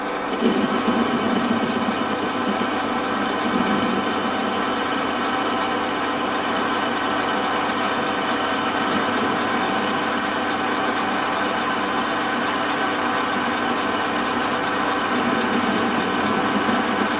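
Warco WM180 bench lathe running steadily at about 480 rpm, its spindle turning an off-centre workpiece in the chuck while a boring bar takes a cut through the bore: an even motor and gear hum with a constant whine.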